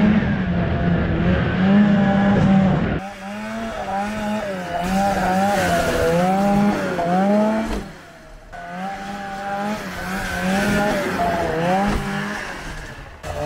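Arctic Cat 370 snowmobile's two-stroke engine being ridden hard, its pitch rising and falling about once a second as the throttle is worked. The sound changes abruptly about three seconds in and dips briefly about eight seconds in.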